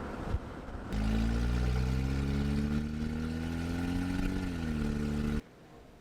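1993 Toyota 4Runner's engine pulling under acceleration, its pitch climbing slowly and then dropping as it eases off, before the sound cuts off abruptly. Before it there is a fainter steady road hum.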